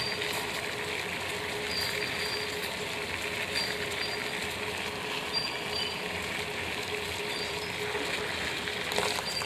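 Tea leaves boiling in water in an aluminium saucepan at a rolling boil: a steady bubbling noise with a faint steady hum beneath it.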